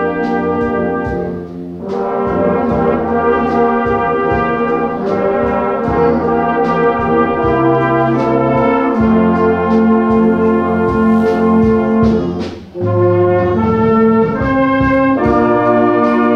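Salvation Army brass band of cornets, euphoniums and tubas playing a hymn arrangement in sustained full chords, with a short break between phrases about two seconds in and again about thirteen seconds in.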